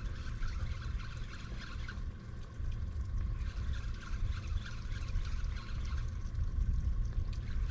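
Water lapping and trickling against the hull of a small fishing boat, over a steady low rumble.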